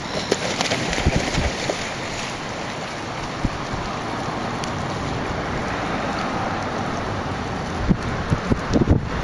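Wind buffeting the microphone over choppy lake water lapping at the edge, a steady rushing noise. Short low thumps come in gusts about a second in and again near the end.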